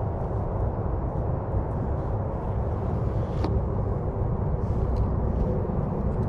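Wind rumbling on the microphone, a steady low noise, with one faint click about three and a half seconds in.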